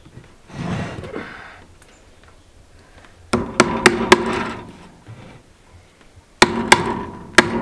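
Hammer blows on a wooden frame, fastening welded-wire fencing: four quick strikes a little over three seconds in, then another three or four about three seconds later, each with a brief ringing.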